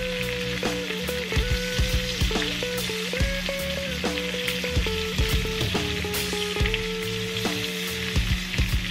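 Shrimp frying in butter in a skillet, a steady sizzle, with a few sharp clicks of metal tongs against the pan as the shrimp are turned. Soft background music with a melody plays underneath.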